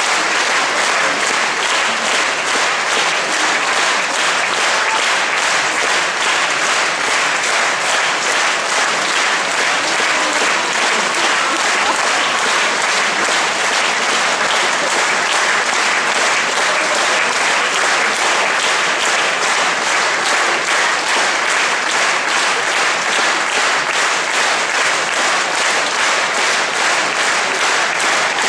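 A large theatre audience applauding steadily and loudly after a song.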